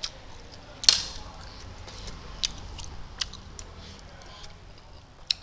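Close-up eating sounds of a man chewing spicy instant noodles, with a few sharp clicks; the loudest comes about a second in.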